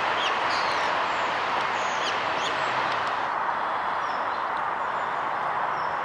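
Song thrush singing, a series of quick high notes, over a steady hiss of background noise. The song stops about halfway through.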